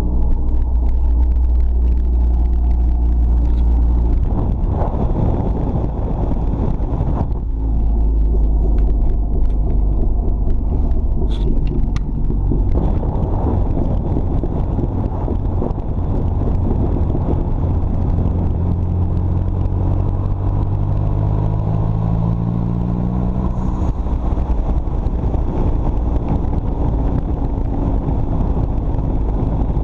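Dodge Neon SRT-4's turbocharged 2.4-litre four-cylinder running through a side-exit exhaust while driving, with a heavy low rumble. In the second half the engine note rises steadily as the car accelerates, drops at a gear change, then climbs again.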